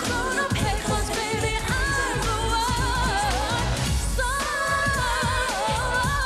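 Woman singing a pop song live, with quick runs and long held notes that waver, over a band with a steady beat.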